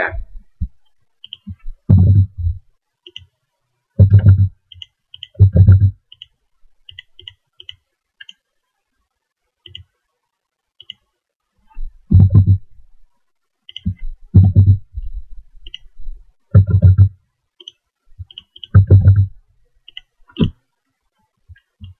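Computer mouse and keyboard clicks picked up by the microphone as user accounts are typed in and dialogs clicked through. Through them run loud, short, low thumps about every two seconds, with a quiet spell in the middle.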